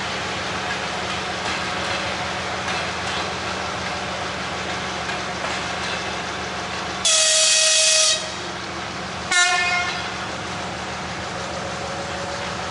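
Shunting locomotive's horn, sounded twice over a steady low hum: a blast of about a second, then a short one about a second later.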